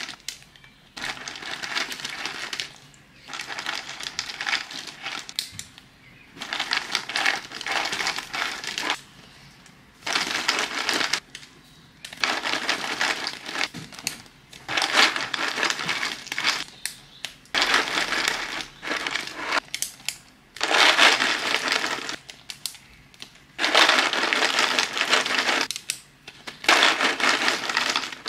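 Small plastic zip-lock bags crinkling as they are handled, and dry snack pieces poured from a plastic jar rustling and rattling into them. The sound comes in a string of bursts of one to three seconds with short pauses between.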